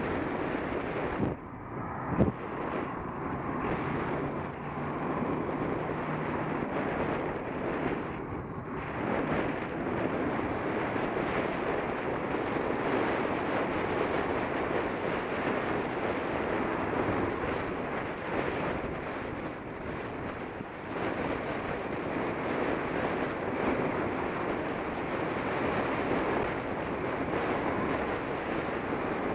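Steady rushing wind buffeting an action camera's microphone as it moves along a paved path, with a couple of knocks about two seconds in.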